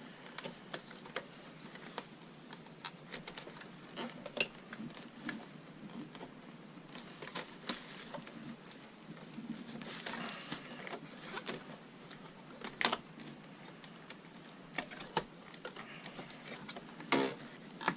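Irregular small clicks and taps of hands and tools working on the plastic and metal parts inside an opened original Xbox, with a few sharper knocks scattered through.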